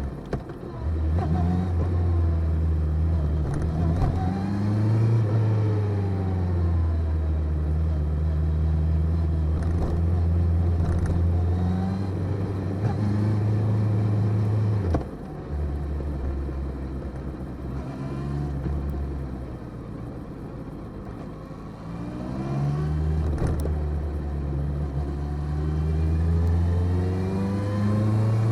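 Motorcycle engine running under way, its note rising and falling with the throttle; it drops suddenly about halfway through and climbs again near the end.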